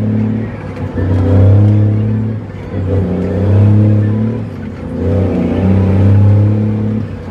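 Cummins N14 inline-six diesel of an International truck pulling hard through the gears of its 13-speed, heard from inside the cab. The engine note swells and drops away about every two seconds as the throttle comes off for each shift.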